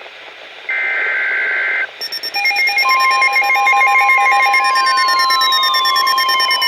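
NOAA Weather Radio emergency alert: a one-second screeching SAME data burst, the last of the warning's header codes. About two seconds in, the steady 1050 Hz warning alarm tone starts, layered with a pulsing alternating beep and several falling tone sweeps.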